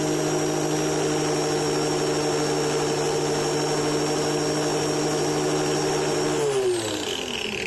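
Black and Decker angle grinder with a sanding disc running at a steady whine, grinding hot glue sticks with a hiss. About six and a half seconds in it is switched off, and the pitch falls as the disc spins down.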